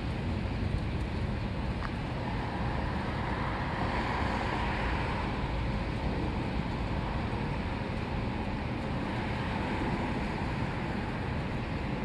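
Outdoor ambience of wind rumbling on the microphone over a steady hum of road traffic; the siren overhead is not sounding.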